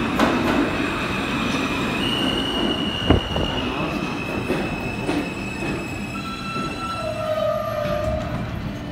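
R160 subway train arriving and braking to a stop, with steady high-pitched whining and squealing tones that step down in pitch as it slows. A single loud clunk comes about three seconds in.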